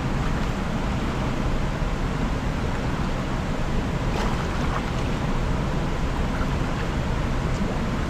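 Steady rush of a fast-flowing rocky mountain river.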